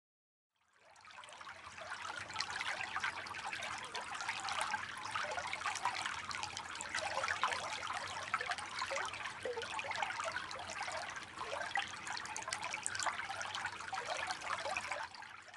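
Small creek trickling steadily, a dense patter of tiny splashes; it fades in over the first couple of seconds and fades out at the end.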